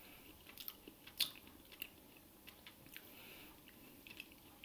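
Faint chewing of a jelly bean: soft mouth clicks, with one sharper click a little over a second in.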